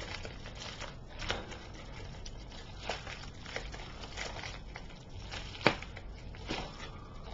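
A mailed package being opened by hand: scattered crinkles, crackles and clicks of the packaging being handled and torn, with one sharper tap or snap about three quarters of the way through.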